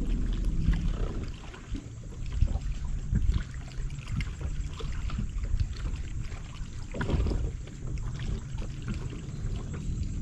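Small waves lapping and slapping against the hull of a bass boat, over a steady low rumble, with a louder splash about seven seconds in.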